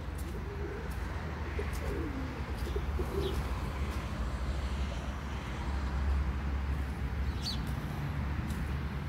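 A bird cooing a few low phrases in the first three seconds, with two brief high chirps later, over a steady low rumble.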